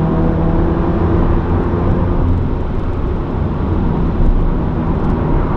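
2015 Subaru WRX's turbocharged flat-four engine, breathing through a muffler delete, running steadily under way with an even drone.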